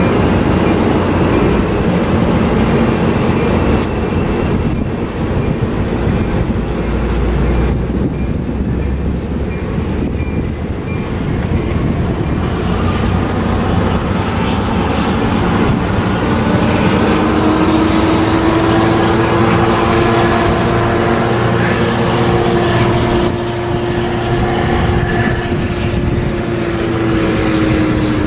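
Bilevel passenger rail cars rolling past and pulling away: a steady rumble of wheels on track and moving cars. About halfway through, a steady hum joins in and holds to the end.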